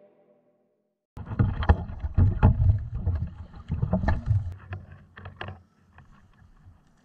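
Kayak paddling: paddle blades splashing and dipping in the water in irregular strokes, with knocks and a low rumble on the microphone. It starts abruptly about a second in and eases off near the end.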